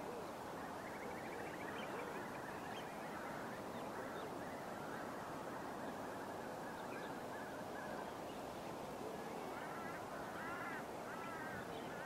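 A flock of waterbirds calling over a steady background hiss, a dense chorus of overlapping calls. Near the end there is a run of repeated, rising-and-falling calls.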